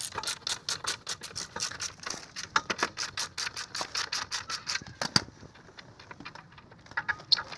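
Socket ratchet clicking fast and evenly as it spins out the bolts holding a stock scooter exhaust pipe, then a single sharp knock about five seconds in, followed by a few quieter clicks.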